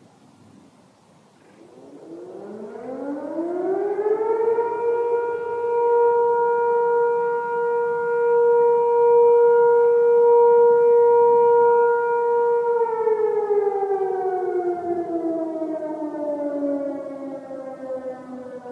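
Sentry 3V8-H electromechanical outdoor warning siren sounding its daily noon test. It winds up from silence over about two seconds and holds one steady, loud tone. Near the end it begins winding down, the pitch sliding lower.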